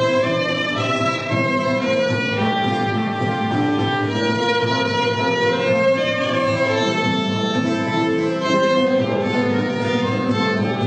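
Instrumental interlude of a sung Spanish romance: a small band plays on with a bowed-string, violin-like line carrying the tune over the accompaniment.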